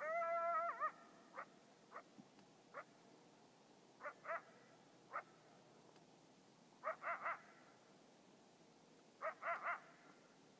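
Coyote calling: a short howl that wavers at its end, then a run of sharp yips, singly and in quick clusters of two or three.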